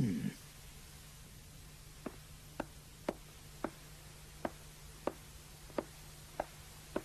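Footsteps climbing a wooden staircase: light single taps about every half second, starting about two seconds in, after a brief voice-like sound at the very start.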